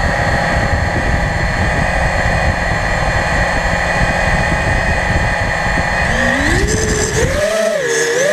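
FPV racing quadcopter's electric motors and propellers spinning steadily at a low throttle, heard close up from the onboard camera. About six seconds in, the motor pitch rises and wavers as the throttle comes up and the drone lifts off.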